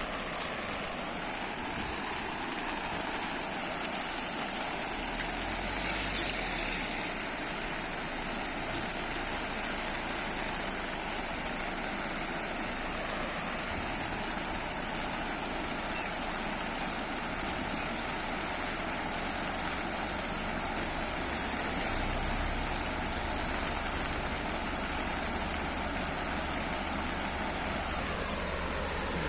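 Steady hiss of heavy rain, with a low rumble swelling twice, about six seconds in and again a little past twenty seconds.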